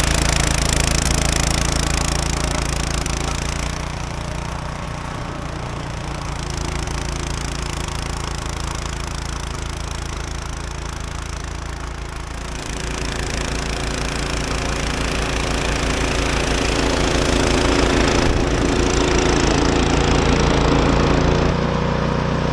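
Gasoline snow blower engine running steadily under load while clearing deep snow, with a broad rushing noise over it. The rushing thins out for several seconds, from about four seconds in, then returns.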